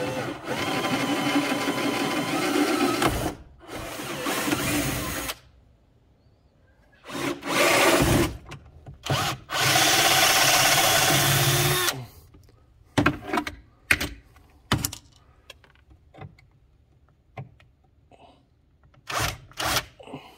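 Bosch compact cordless drill drilling out the rivets that hold a golf cart's dash panel, in four runs of a few seconds each. Scattered short clicks and knocks follow in the last several seconds.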